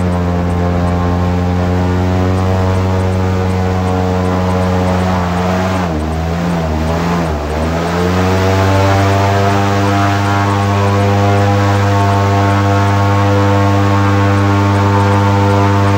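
Airboat's engine and propeller running steadily; about six seconds in the pitch drops and wavers as the throttle eases, then climbs back up about two seconds later and holds.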